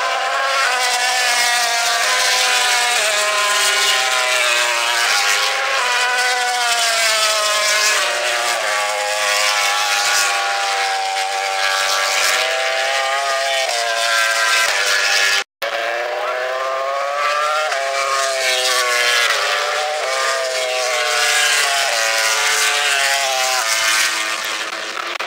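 Several MotoGP racing motorcycles' four-stroke engines revving hard as they pass on track, each note climbing through the gears and falling away, overlapping one another. The sound cuts out for a moment a little past halfway.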